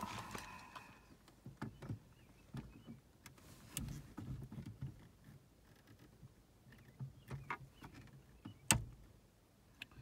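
Scattered light clicks and knocks of a steering wheel being handled and fitted onto a 1983 Cutlass steering column, with one sharper click late on.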